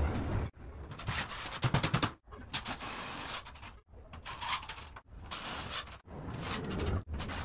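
DeWalt 20V MAX XR cordless impact driver hammering screws through gypsum board into steel framing, in a run of short bursts one after another, each a fast rattle of impacts.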